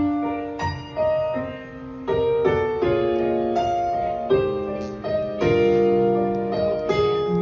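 Solo piano playing the introduction of a slow piano-and-voice ballad, before the voice comes in. Single notes and chords are struck every half second or so and left to ring and fade.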